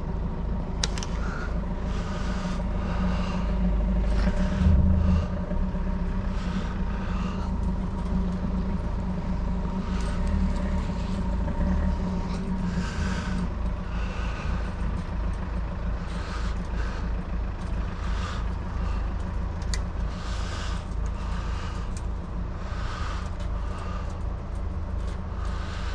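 Chain-link mesh and tie wire being worked by hand: light metallic clicks, scrapes and rattles come every second or so over a steady low rumble, and the rumble swells briefly about five seconds in.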